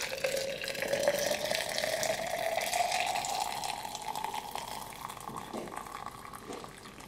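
Just-boiled water poured from a kettle into a tea tumbler, its filling note rising steadily in pitch as the tumbler fills, then trailing off near the end.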